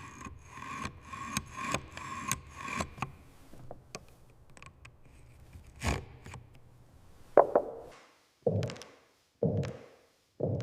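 Building-work handling sounds: small clicks and scraping at first, then a single sharp knock. A series of heavy knocks follows, about one a second, from about seven seconds in.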